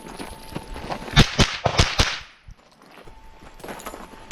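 Rimfire rifle shots in a quick string, about five within a second, sharp cracks with no steel ringing after them. Right at the end a steel target starts to ring from a hit.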